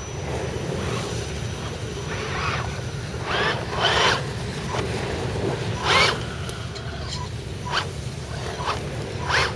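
Radio-controlled scale crawler trucks driving over loose beach sand: a steady low wind rumble on the microphone, broken by about seven short hissing bursts, the loudest near four and six seconds in.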